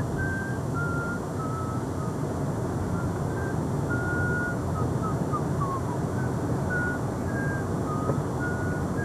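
Steady rumble of a moving car, heard from inside, with a scattered series of short, high whistle-like tones at shifting pitches over it.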